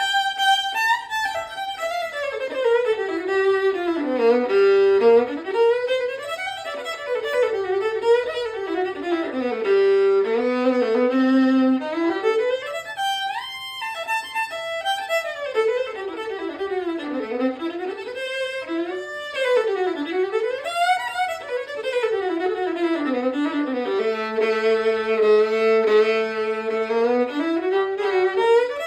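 Solo fiddle played with the bow: a quick tune in runs that climb and fall, ending on two notes held together for several seconds. This is a newly made handcrafted fiddle with a big, bassy, loud tone.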